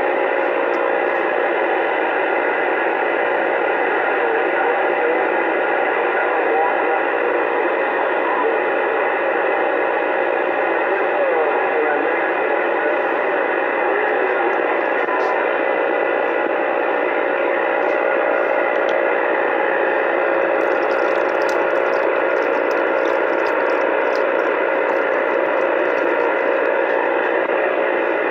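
Uniden Bearcat CB radio's speaker giving out steady AM band static with the squelch open, a faint steady tone and a few brief warbling whistles under the hiss.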